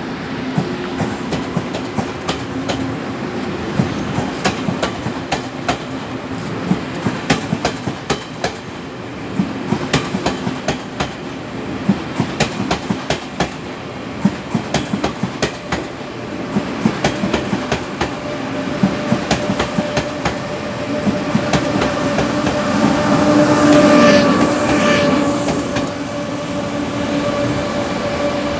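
Train wheels clicking over rail joints, joined from about two-thirds of the way in by the steady drone of a Taiwan Railways diesel locomotive hauling passenger cars. The drone grows louder as the locomotive draws near, at its loudest a little before the end.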